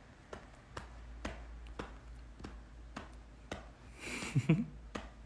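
Faint light taps, about two a second, then a man's short breathy laugh near the end.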